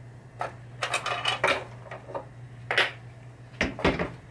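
Small metal pinball parts and screws clinking and rattling as they are handled and dropped into a small cardboard box, a string of separate sharp clicks with a heavier knock near the end. A steady low hum runs underneath.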